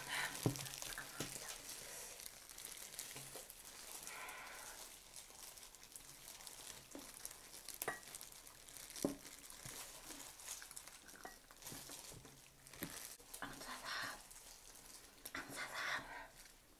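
Disposable plastic gloves crinkling as whole roast chicken is pulled apart by hand, with chewing and a few short, sharp clicks.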